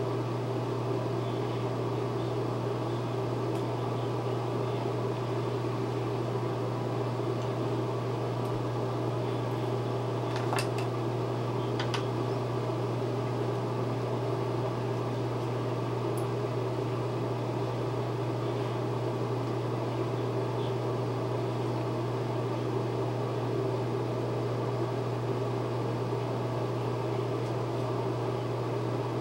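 Ventilation fan running with a steady hum, a strong low tone under a steady hiss. A few faint light clicks about ten and twelve seconds in.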